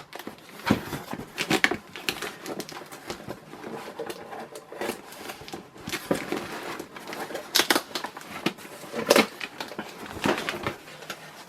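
Cardboard box and packing being handled: irregular rustling and scraping with scattered sharp knocks and taps.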